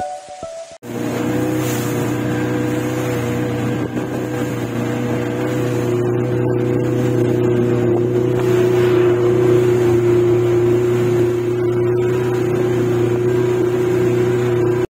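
A small wooden tourist motorboat's engine running steadily under way, heard from on board, a constant drone with a fixed pitch. Plucked-guitar music plays for the first second before it cuts in.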